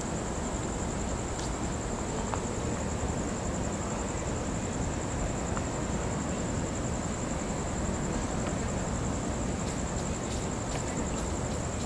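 Continuous high-pitched trill of night insects over a steady low background rush, with a run of faint sharp clicks starting about ten seconds in.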